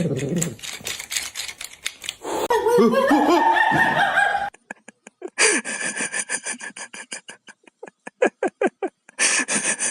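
A person laughing in a run of short, quick bursts, about three a second, in the second half.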